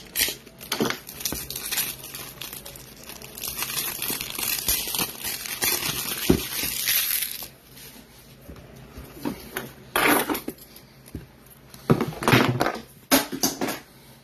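Crinkling and crackling of plastic card-supply packaging handled by hands, steady for about five seconds, then a few short rustles and clicks near the end as a card is slid into a toploader.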